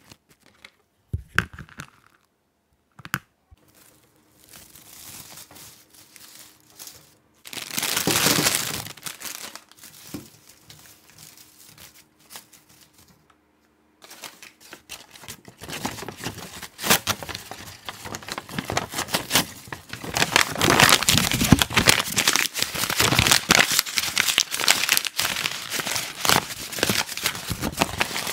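Crinkling and rustling of packaging being handled, with a few sharp clicks at first and a loud rustle about eight seconds in. From about halfway it becomes near-continuous, and louder in the last third.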